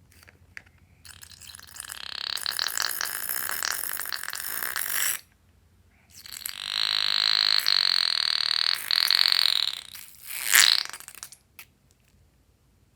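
A balloon being emptied: air and contents forced out through its stretched neck in two long squeals of about four seconds each, the second holding a steady high pitch, then a short burst about a second later.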